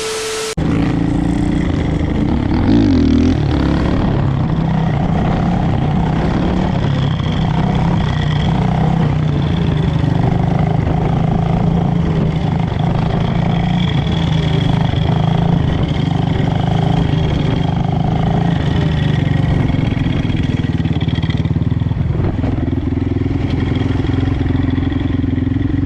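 Off-road vehicle engine running steadily at an even speed, without big revs.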